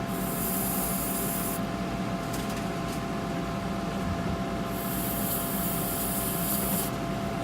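Dental air-abrasion unit sandblasting the inside of an e.max porcelain crown: a hissing spray in two bursts, one about a second and a half long at the start and one of about two seconds past the middle, over a steady machine hum.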